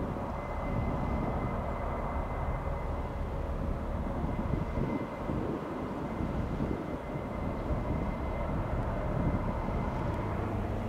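Steady low rumble of passing ships' engines carried over the water, with wind gusting on the microphone.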